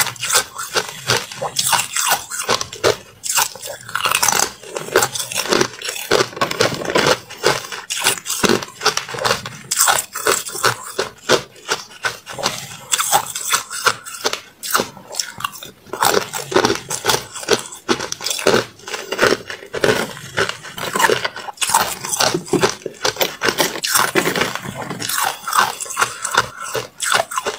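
Hard clear ice being bitten and chewed: a dense, unbroken run of sharp crunches and cracks.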